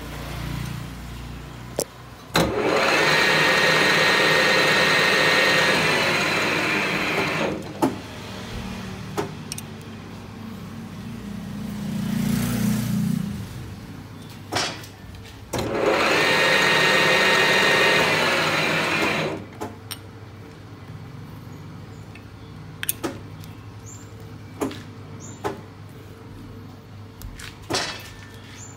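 Metal lathe spindle run up twice, each time for about four to five seconds, running with a steady whine and then coasting to a stop. Between the runs, scattered clicks and metal knocks of hands working at the chuck and workpiece.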